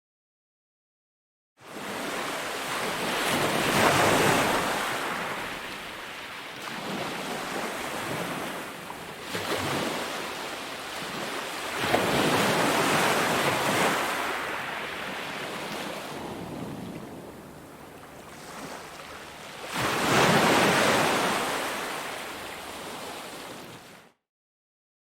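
Sea waves breaking and washing up on a beach, three waves swelling and falling away in turn, about eight seconds apart. The sound cuts out completely at the very start and again near the end.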